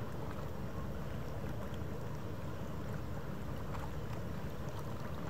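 Steady low rumble of a ship's engines, with a few faint ticks.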